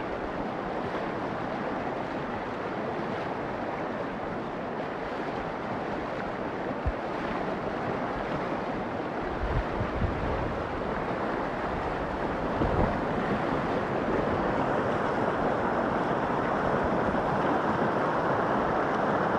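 Fast-flowing floodwater rushing, a steady noise that grows a little louder toward the end, with a few low knocks of wind on the microphone around the middle.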